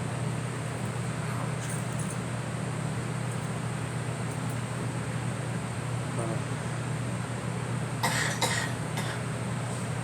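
A girl coughing twice in quick succession, about eight seconds in, over a steady low hum.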